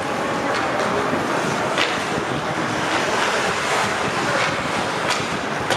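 Ice hockey rink during play: a steady hiss of skates on the ice, with three sharp knocks of sticks and puck, about two seconds in, about five seconds in and near the end.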